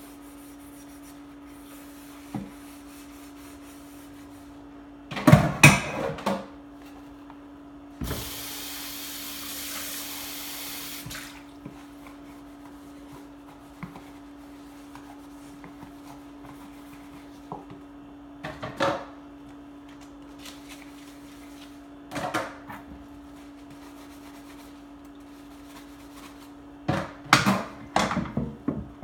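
Washing dishes by hand at a kitchen sink: dishes and a pan clatter and are scrubbed in several short bursts, and the tap runs for about three seconds a third of the way in. A steady low hum sits underneath.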